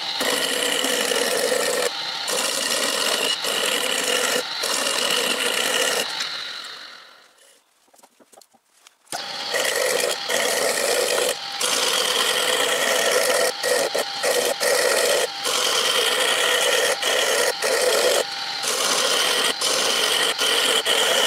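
Wood lathe running while a hand-held turning chisel cuts a spinning wooden rod: steady scraping over the lathe's running sound, with short breaks as the tool lifts off the wood. The sound dies away about seven seconds in and comes back suddenly about nine seconds in.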